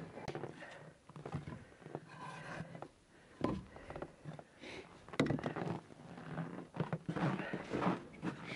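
Irregular knocks and scrapes of hands and gear against a log gazebo's wooden beams, mixed with footsteps crunching on packed snow and clothing rustle; the sharpest knocks come about three and a half and five seconds in.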